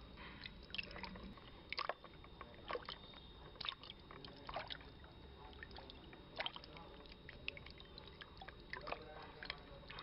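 Faint dripping and sloshing water: a string of short, sharp drips and splashes at irregular intervals over a low steady hiss.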